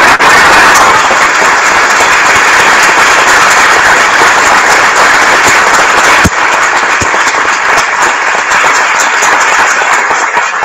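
Audience applauding, a loud dense clapping that thins out near the end into separate claps.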